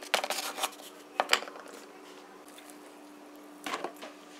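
Dry, brittle tamarind pods clicking and crackling as they are handled on a wooden cutting board, a quick cluster of sharp clicks in the first second and a half. Near the end there is one short burst of handling noise.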